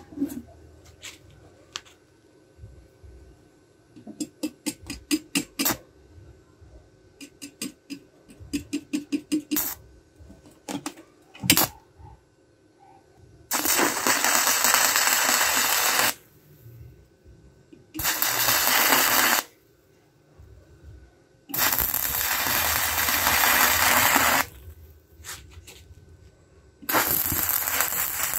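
Stick-welding rod striking and arcing on steel. First come scattered crackles and quick runs of ticking as the rod is tapped to strike the arc, then four bursts of steady sizzling arc, each a second and a half to three seconds long.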